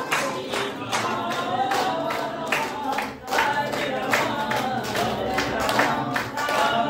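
A congregation singing a devotional hymn together, with clapping keeping a steady beat about twice a second. The singing breaks off briefly a little after three seconds.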